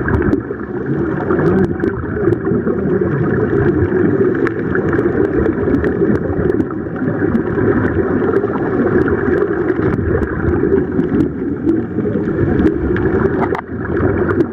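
Underwater noise picked up by a camera submerged in the sea during a scuba dive: a steady muffled rushing and gurgling of water, with many scattered small clicks.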